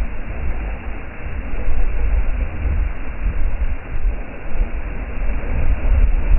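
Wind buffeting the microphone: a loud, low rumble that swells and eases with the gusts.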